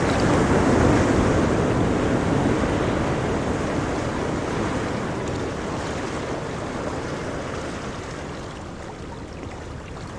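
A wave breaking on a pebble beach. It is loudest about a second in, then slowly fades as the water washes back, with faint clicks of pebbles toward the end.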